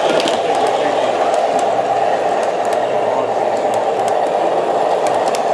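Williams O scale RS-3 model diesel locomotive running along the track, its True Blast Plus sound system giving a steady diesel engine sound, with light clicks from the wheels on the rails.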